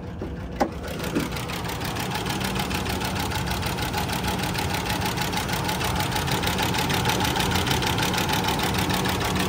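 2001 Ford Ranger's 3.0-litre V6 idling steadily with a fast, even ticking, getting louder over the first few seconds as the open engine bay is neared. A couple of clicks come in the first second as the hood is opened.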